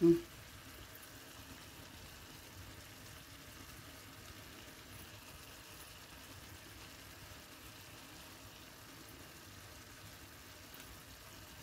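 Chicken, onions and spices cooking in oil and a little water in a clay tajine over the flame: a faint, steady sizzling simmer.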